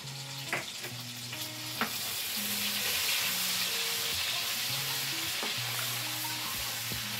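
Minced garlic sizzling in melted butter and olive oil in a frying pan while it is stirred with a wooden spoon. The sizzle grows louder about two seconds in, and there are a couple of light clicks in the first two seconds.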